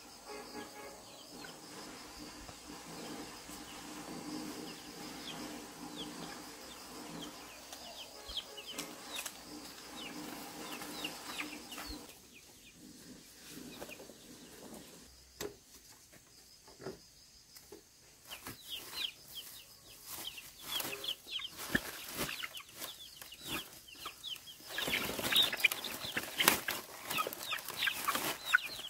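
Chickens clucking and peeping in many short high calls, growing busier and louder in the last few seconds. A faint low steady hum underneath stops about twelve seconds in.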